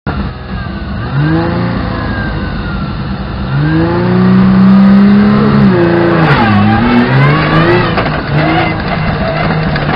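Rally car engine revved at the stage start, its pitch climbing and held high for a couple of seconds, then dropping as the car pulls away and climbing again through several quick upshifts. A few sharp clicks come in near the end.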